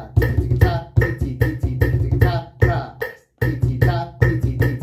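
Hand drumming of a fast rhythm of quarter notes and sixteenth-note runs, played against a metronome at 150 beats per minute, with the rhythm syllables ('ta', 'tikka tikka') chanted in time over the strokes.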